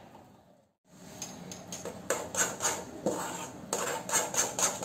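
Metal spoon scraping and knocking against an aluminium kadhai in repeated strokes as a thick paneer mixture is stirred off the heat. A brief moment of silence falls just under a second in.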